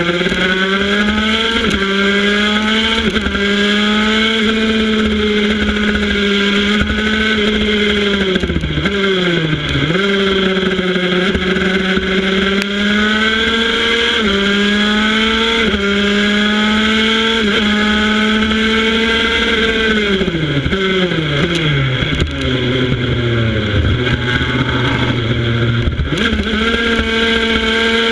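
Racing motorcycle's engine heard from a camera on the bike at speed. It is held high with several quick jumps in pitch, like gear changes, and a brief dip about a third of the way in. About three-quarters of the way through it falls steeply as the bike slows for a corner, stays low for a few seconds, then rises sharply again near the end.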